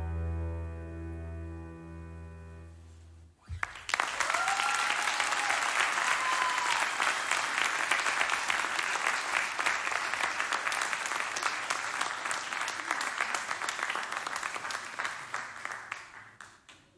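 The song's final chord on keyboard and acoustic guitar rings out and fades over about three seconds. Then a concert audience breaks into applause, which holds steady and dies away near the end.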